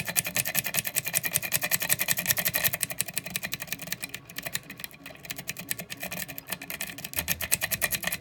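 A lock rake scrubbed rapidly in and out of an Abus 7240 padlock's keyway under light tension, its tip clicking over the pin stacks in a fast, steady run of clicks.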